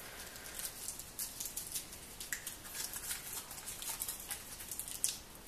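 Scattered light clicks and rustles from small objects being handled by hand, irregular and mostly high-pitched.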